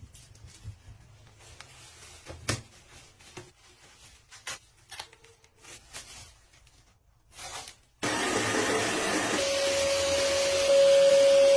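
Faint rustling of cloth being handled, then about eight seconds in a pet blow dryer switches on: a loud, steady rush of air with a steady whine, stepping up louder near the end as it blows into the dog's drying jacket.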